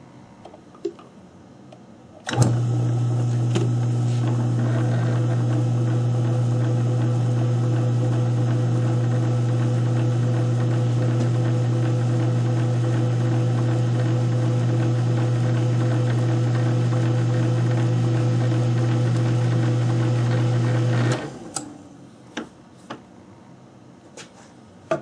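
South Bend lathe running in back gear, a loud steady hum, while a die threads the workpiece; it is switched on about two seconds in and shut off a few seconds before the end, followed by a few light clicks.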